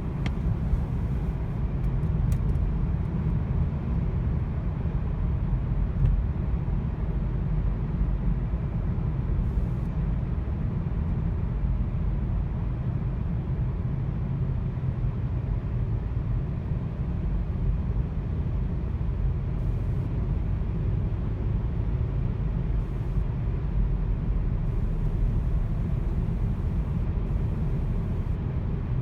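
Volkswagen car driving with an engine misfire: a steady low rumble of engine and road noise that holds without change.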